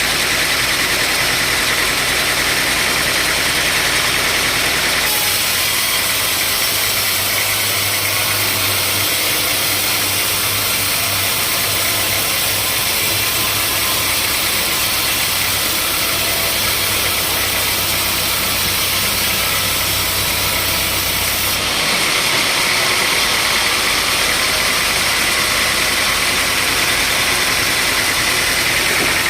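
Sawmill machinery running, a loud, steady mechanical noise. Its character changes abruptly about five seconds in, when a low steady hum comes in, and changes back with some seven seconds left.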